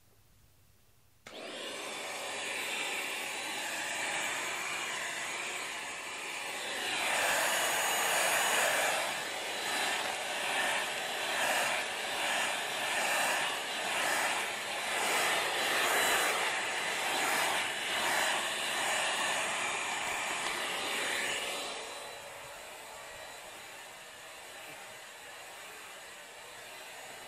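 Vacuum cleaner switched on about a second in and running with a steady whine. From about 7 s to 22 s it is louder and swells and fades roughly once a second as the floor head is pushed back and forth over a shaggy rug, then runs on more quietly.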